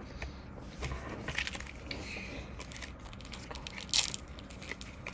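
Foil card-pack wrappers crinkling and trading cards being shuffled and handled, with scattered small clicks and a louder sharp crackle about four seconds in.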